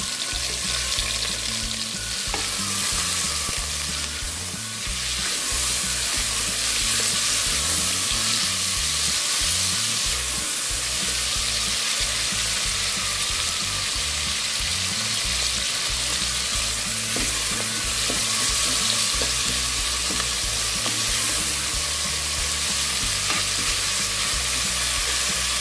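Sliced onion, garlic, tomato and grated ginger sizzling steadily in hot oil in an aluminium pressure cooker while a wooden spoon stirs them, at the start of sautéing the vegetables soft.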